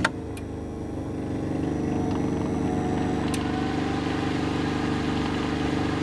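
Generator engine running steadily, a little louder from about a second and a half in, with a sharp click at the start and another about three seconds in.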